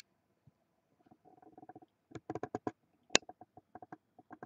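Computer mouse scroll wheel clicking in quick runs of notches as a spreadsheet is scrolled, with one sharper click a little after three seconds in.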